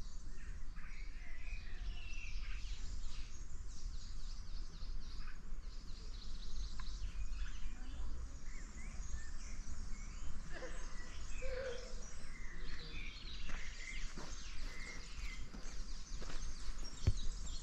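Several birds singing and chirping, many short calls overlapping, over a low steady rumble.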